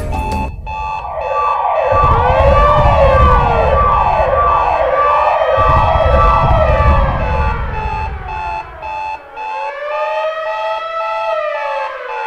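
Siren-like wailing: several electronic tones sweep up and down and overlap over a fast pulsing beep. About two seconds in, a low rumble comes in under them and runs for several seconds.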